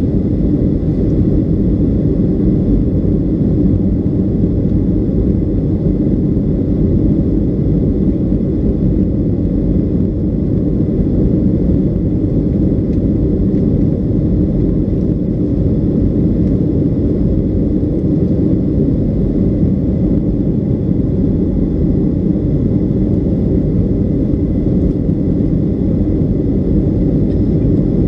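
Cabin noise of a Boeing 757-200 in its climb after takeoff, heard from a window seat behind the wing: a loud, steady rumble of its Rolls-Royce RB211 turbofans and the air rushing past, with a faint high whine held steady above it.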